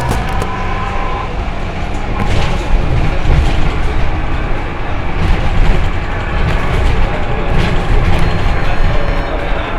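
Citybus bus heard from on board while moving: a heavy, steady rumble of engine and road, with rattling and a sharper clatter about every two to three seconds. The uploader calls this a funny sound.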